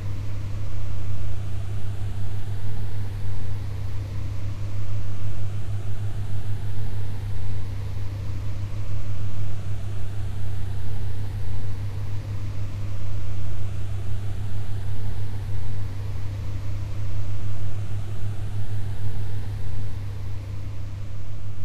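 A steady deep hum under a rushing noise that swells and dips, with faint sweeps rising in pitch over and over, every couple of seconds.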